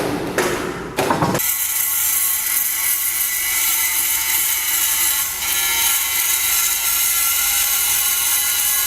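Saw blade tooth-hardening machine running under test: sharp mechanical clacks about twice a second for the first second and a half, then a steady high-pitched whine and hiss.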